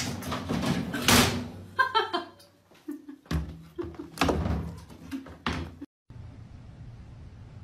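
Bangs and thumps of a cat jumping into a top-loading washing machine, knocking against the metal body, open lid and drum. The knocks come in an irregular cluster for about five seconds. After a short break a faint, steady low hum follows.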